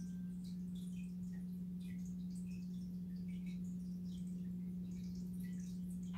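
Aquarium pump's steady low hum, with faint scattered drip-like ticks of water.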